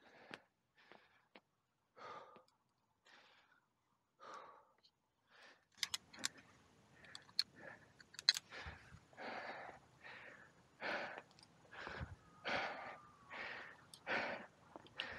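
A climber's heavy breathing, short breaths about once a second that come faster and louder in the second half, with a few sharp metallic clicks of climbing gear about six to eight seconds in.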